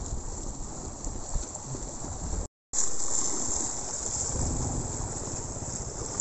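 Wind buffeting the phone's microphone, with choppy lake water lapping against a concrete seawall. The sound drops out completely for a moment about two and a half seconds in.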